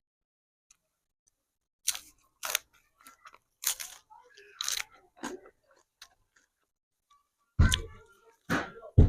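Close-miked crunchy bites and chewing, in short sharp bursts. Near the end come a few louder, deeper mouth sounds.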